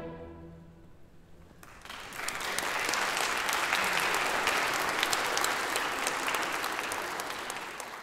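The string orchestra's final chord rings out and fades over the first second or so, then audience applause begins a little under two seconds in and carries on steadily.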